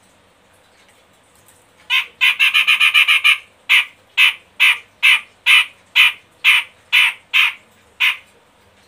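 Cucak jenggot bulbul calling: a fast run of harsh, chattering notes about two seconds in, then a slower series of about ten evenly spaced harsh notes, roughly two a second, ending near the end.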